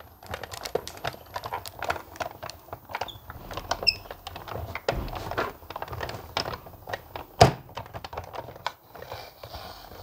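Sizzix Big Shot die-cutting machine being hand-cranked, the plate sandwich with a die and paper pressing through its rollers: a steady run of small crackling clicks and creaks as the die cuts the paper, with one louder knock about seven seconds in.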